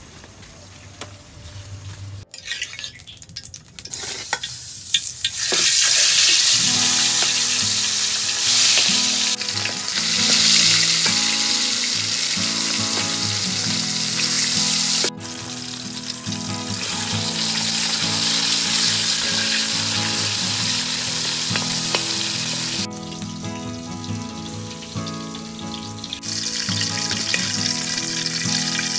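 Whole river fish deep-frying in hot oil in a wok, a loud steady sizzle that starts about six seconds in and eases briefly near the end.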